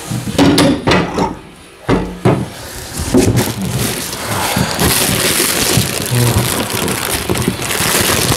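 Bubble wrap and plastic bags of foam packing peanuts rustling and crinkling as hands rummage through them in a cardboard box. A few short knocks come in the first two seconds, then a continuous crackle from about three seconds in.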